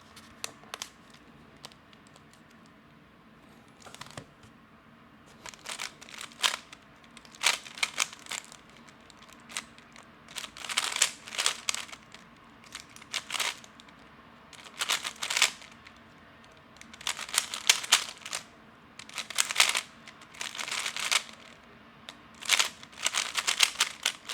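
Magnetic 3x3 speedcube, lubed and loosened, being turned fast in a timed solve: rapid plastic clicking in bursts of turns with short pauses between them. Only a few clicks come in the first few seconds, and the turning runs on from about five seconds in.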